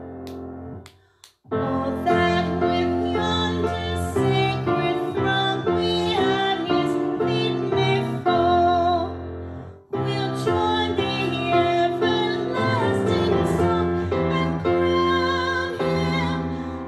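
Worship music: a woman singing with vibrato over instrumental accompaniment. The music drops out briefly about a second in and dips again near ten seconds.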